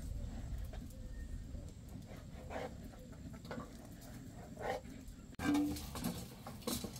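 Domestic poultry (geese and chickens) calling briefly a few times over a low, steady rumble.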